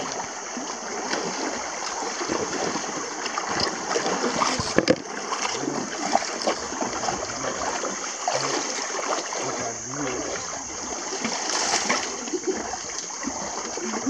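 Shallow river water running and splashing around people and elephants standing in it.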